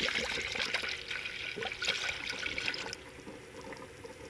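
Engine coolant poured into a radiator filler funnel, splashing and gurgling as the radiator fills. The pour stops about three seconds in, leaving quieter bubbling as air rises out of the cooling system through the coolant in the funnel.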